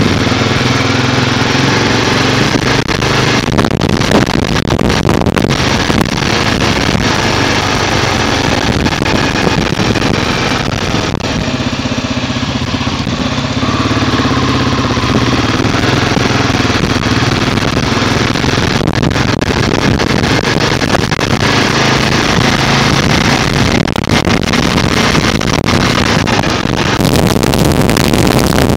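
Motorcycle engine running at steady road speed while riding, under a dense rushing hiss. A little before the end the hiss turns brighter and sharper.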